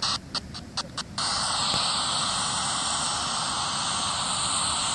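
Steady hiss of static from a handheld digital recorder playing back an EVP session, with a few brief dropouts in the first second.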